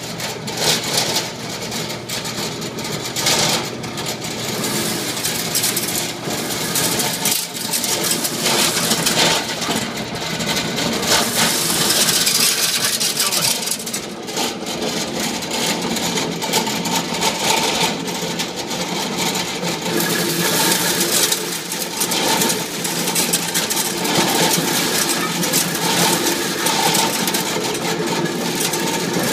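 Motorized McCormick corn sheller running under load: an electric motor's steady hum through the belt drive under a dense, continuous rattle as ears of corn are fed through and the kernels are stripped from the cobs.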